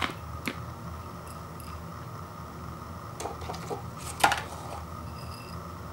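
A ceramic bowl and an instant-noodle cup being handled on a wooden table: a sharp knock at the start and another half a second later, a few light clicks and crinkles just past the middle, and the loudest knock about four seconds in.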